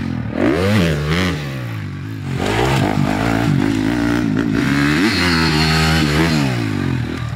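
Dirt bike engine revving up and down as the bike is ridden, with the throttle opened and closed several times. The pitch climbs about half a second in and again around five seconds in, then falls away near the end.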